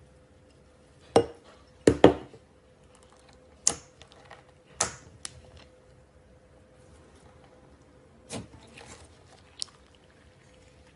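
Slime being handled, giving a handful of sharp, wet pops and clicks a second or more apart, the loudest two close together about two seconds in.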